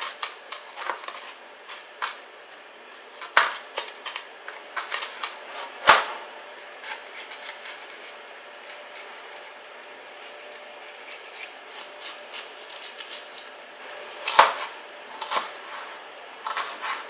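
Chef's knife chopping onions and a red bell pepper on a cutting board: irregular knocks of the blade on the board, lighter through the middle, with two sharper knocks about six seconds in and again near the end.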